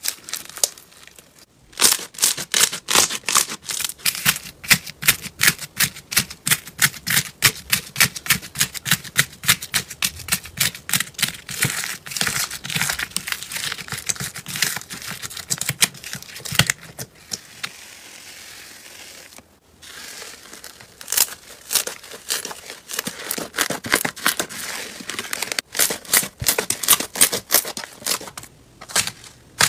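Slime being squeezed and pressed by hand, making rapid crackling and popping sounds at a few pops a second, with a softer, steadier stretch past the middle.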